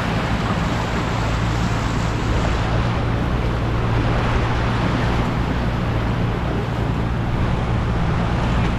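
Steady rushing of floodwater, with a low, steady engine hum underneath.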